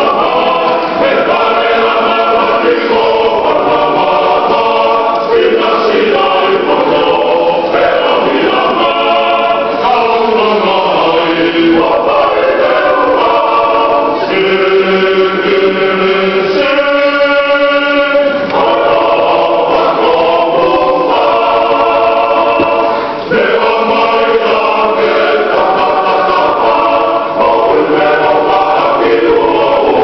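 Church choir singing in parts, the voices holding long sustained chords that change together; one chord is held for a couple of seconds about halfway through.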